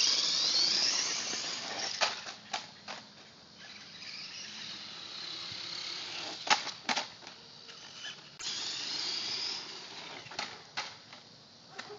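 Traxxas 1/16 Summit RC truck's electric motor and drivetrain whining high, the pitch rising and falling as it speeds up and slows. There are a few sharp knocks. The whine fades away a few seconds in and comes back suddenly past the middle.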